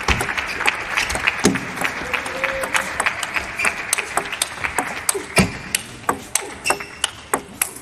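Table tennis rally: the ball's sharp clicks off the bats and table come quickly and irregularly, mixed with scattered clapping. There are a couple of heavier low knocks, about a second and a half in and again past five seconds.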